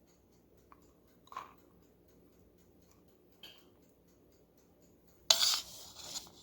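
Kitchen handling while shredded chicken is put onto pita bread: a few soft taps and clicks, then one loud rustling scrape lasting about a second near the end.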